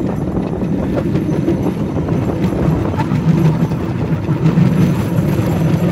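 Cambodian bamboo train (norry) running along its narrow track: a steady low drone from its small engine and the rumble of its wheels on the rails, with a few faint knocks.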